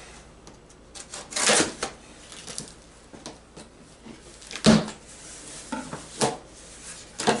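A knife cutting the packing tape on a cardboard shipping box, with the box handled: scattered scraping and tearing, and a sharp knock just under five seconds in, the loudest sound.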